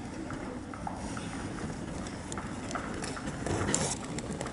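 Hard-soled dance shoes clicking in scattered steps on a hard floor over a steady low background hum, the clicks coming thicker near the end.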